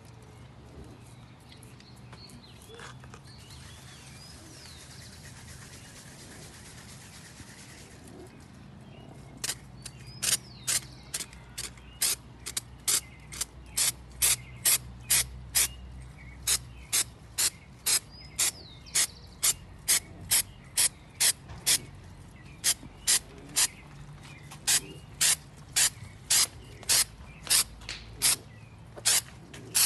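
Rust-Oleum Stone textured spray-paint aerosol can: a steady spray hiss for about five seconds, then a long run of short, sharp bursts at about two a second.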